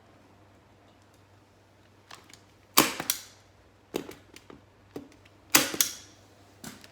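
Hand staple gun firing staples through plastic sheeting into a crate seat: a string of sharp snaps, the two loudest about three seconds in and near six seconds in, each followed quickly by another shot, with lighter snaps between.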